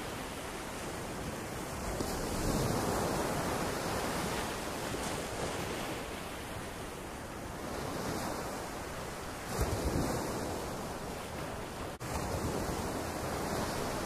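Small surf breaking and washing up over the sand, the wash swelling and ebbing every few seconds, with wind buffeting the microphone. A louder rush about ten seconds in.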